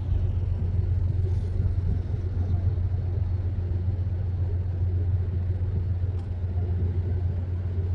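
Steady low rumble of a distant Metro-North P32AC-DM diesel locomotive pulling its train out.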